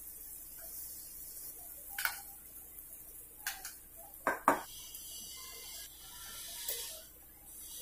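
Urad dal bhallas frying in hot oil in a metal kadhai, a steady high sizzling hiss, with four sharp clinks of a metal slotted spoon against the pan, the loudest two close together about halfway through.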